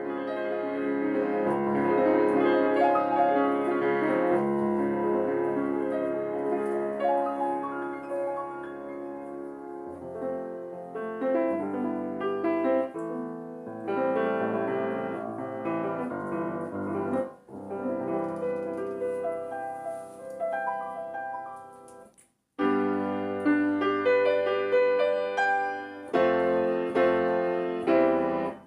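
Circa-1990 Yamaha C3 grand piano with Renner hammers, freshly tuned and repaired, played in chords and melody over a wide range of loudness. The playing is loud at first, softer in the middle, stops abruptly about 22 seconds in and resumes louder.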